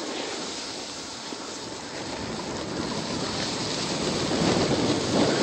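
Snowboard sliding and scraping over snow while riding downhill, mixed with wind rushing over a phone's microphone: a steady rushing noise that grows louder in the second half.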